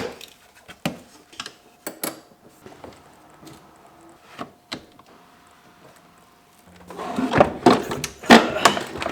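Hand tools and metal parts clicking and knocking while a car battery is disconnected and lifted out, with a denser, louder run of clattering from about seven seconds in.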